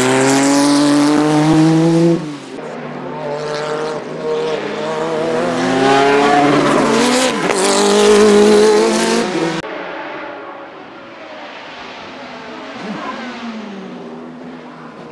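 Group C prototype race car engines at full throttle passing close by. First a Porsche 962's turbocharged flat-six climbs in pitch and drops sharply about two seconds in. Then a Nissan Group C car's twin-turbo V8 rises through the revs until it breaks off suddenly near ten seconds, and a quieter, more distant engine follows.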